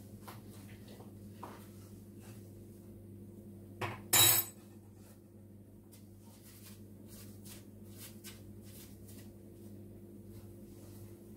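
A short, loud clatter of crockery about four seconds in, as a plate is handled, with faint light taps of doughnuts being turned in sugar on a plate, over a steady low hum.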